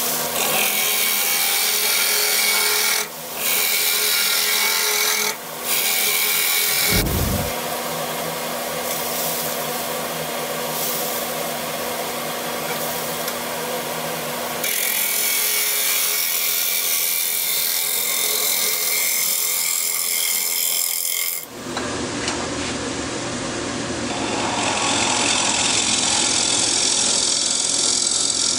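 Gouge cutting a Siberian elm bowl spinning on a wood lathe: a steady, noisy scrape of wood being peeled away over the faint hum of the lathe, with two short breaks where the tool lifts off. About 21 seconds in, the sound cuts abruptly to another stretch of the same cutting.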